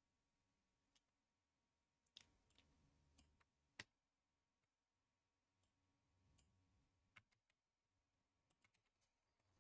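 Near silence: quiet room tone with a few faint, sharp clicks, the clearest about four seconds in.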